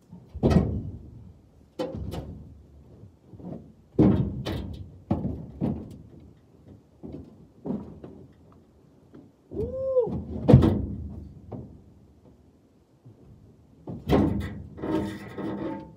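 Firewood rounds being tossed into a trailer: a series of separate, irregularly spaced wooden thuds and knocks.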